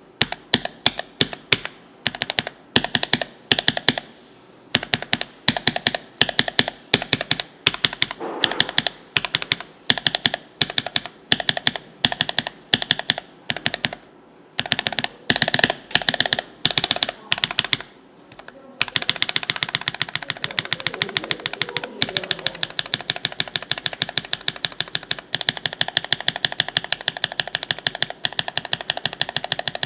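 Linear mechanical keyboard switches with cream stems in nylon housings (JWK Black, Cherry Black, Aqua King) on a switch tester, pressed one after another and bottoming out with sharp clacks in small groups. The Cherry Black housing is meant to sound lower-pitched than the JWK Black and the Aqua King deepest. About two-thirds of the way in, a key is tapped very fast in a continuous rattle of clicks.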